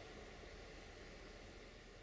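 Near silence: a faint, steady background hiss with no distinct sounds.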